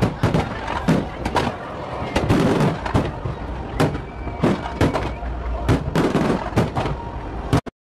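Aerial fireworks shells bursting in a rapid, irregular volley of sharp bangs, about two or three a second, over a steady low rumble. The sound cuts off abruptly near the end.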